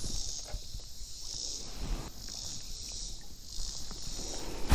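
Insects buzzing in a high, even drone that swells and fades about once a second.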